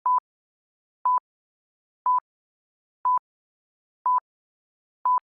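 Short electronic beeps of a single pitch, evenly spaced once a second, six in all, with silence between them.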